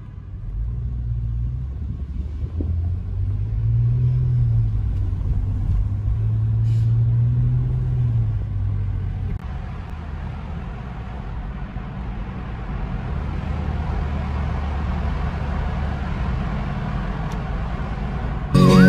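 A car driving, heard from inside: a low engine rumble whose note rises and falls as the car pulls away, then tyre and road noise that grows louder as the car runs through a road tunnel.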